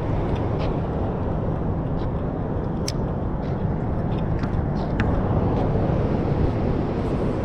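Steady rumble of water pouring through a spillway, with a few light clicks from a spinning reel being wound in and handled.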